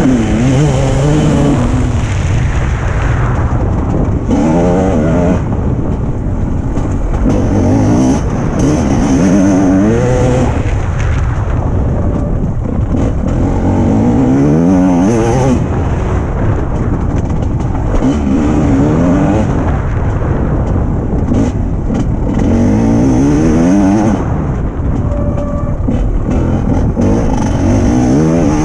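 Motocross bike engine under hard riding: the note climbs in pitch again and again as the rider accelerates and shifts up, then drops back as he rolls off for corners.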